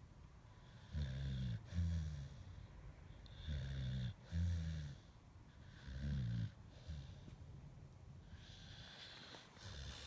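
Pit bull snoring in its sleep: low snores, mostly in pairs of breaths, three louder rounds in the first six seconds, then fainter.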